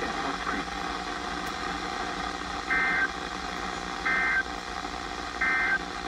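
NOAA Weather Radio's Emergency Alert System end-of-message signal through a weather radio's speaker: three short, buzzy digital data bursts about 1.3 seconds apart over steady radio hiss. It marks the end of the warning broadcast.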